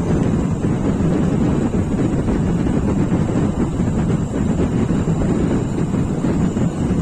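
Wind buffeting the microphone: a steady, loud low rumble that rises and falls a little.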